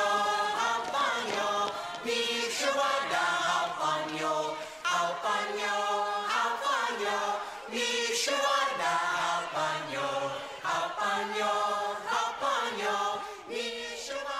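A group of voices singing a song together in phrases, like a choir.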